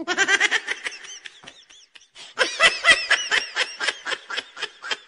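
High-pitched laughter in rapid, short pulses, fading briefly about two seconds in, then starting again.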